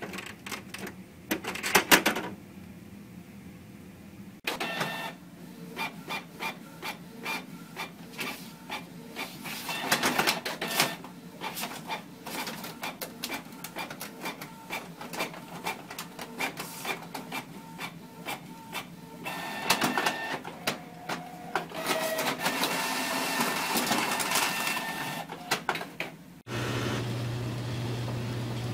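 Inkjet printer running, with rapid mechanical clicking and whirring from its paper feed and print-head mechanism and a few sharp knocks near the start. Near the end it cuts to a steady low hum.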